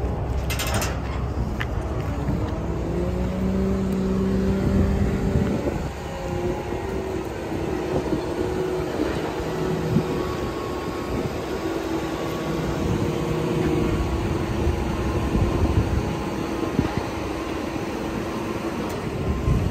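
A motor vehicle engine running, its note climbing and holding for a few seconds before dropping back about six seconds in, then running on at a steady pitch.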